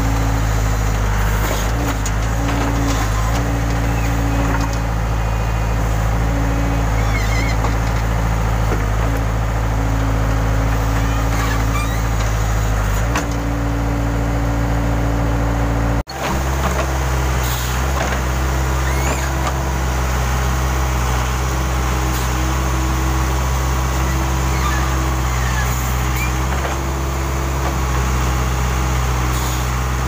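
Case 580 Super K backhoe loader's diesel engine running steadily while the backhoe digs, with a higher hum that comes and goes every few seconds as the arm is worked. The sound cuts out for an instant about halfway through, then the engine carries on at a slightly different pitch.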